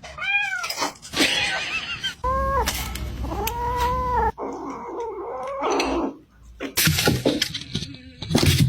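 A cat meowing about four times, each meow rising and then falling in pitch, the last one drawn out for about a second; noisier sounds follow in the second half.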